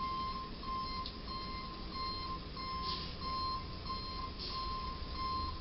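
Truck's reversing alarm beeping at an even pace as the box truck backs up.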